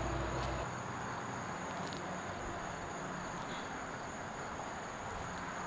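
Crickets trilling steadily, a thin high continuous tone over faint outdoor background noise.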